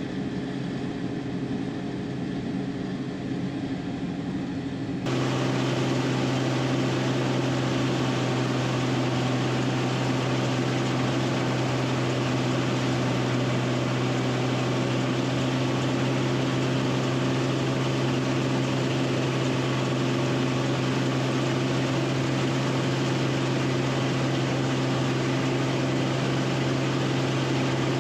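Combine harvester's engine and threshing machinery running at a steady pitch, heard inside the cab. About five seconds in the sound abruptly gets louder and fuller, then holds steady.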